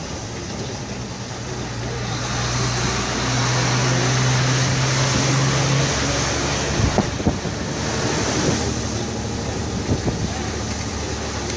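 Wind and road noise inside a moving vehicle's cab, swelling for several seconds, over a steady low engine hum that drops away about halfway through. A few short knocks or rattles come just past the middle and once more near the end.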